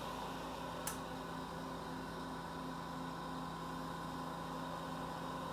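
Steady hum of running studio equipment with the soft, even hiss of a glassworking bench torch flame as white glass stringer is melted onto a bead; one faint click about a second in.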